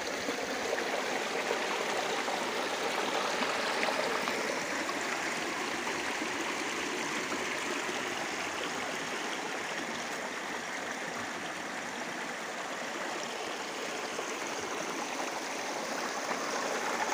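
A small river flowing and babbling over rocks: a steady, even rush of water.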